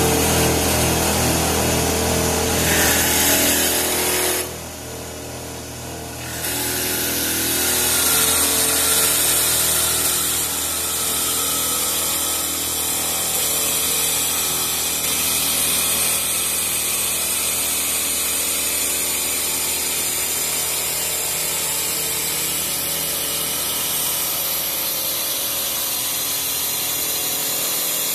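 Three-spindle CNC wood lathe running, turning three wooden blanks at once: a steady motor whine mixed with the noise of the cutters taking wood off. The sound drops for a couple of seconds about four seconds in, then picks up again and holds steady.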